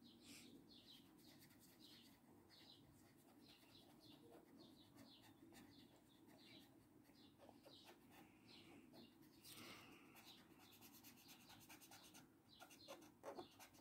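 Near silence with the faint scratching of a felt-tip marker colouring on a paper colouring-book page, short strokes repeating, with a slightly denser stretch about nine and a half seconds in.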